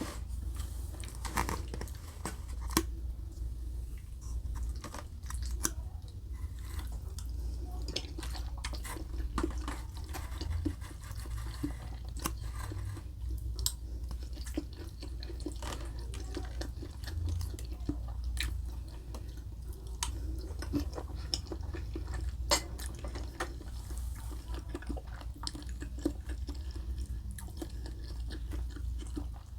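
Close-miked chewing and eating sounds: many short, sharp mouth clicks and smacks over a low steady hum.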